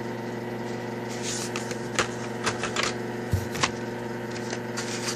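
Scattered light clicks and taps of carded Hot Wheels cars, cardboard backing cards and plastic blister packs, being handled and set down, over a steady electrical hum.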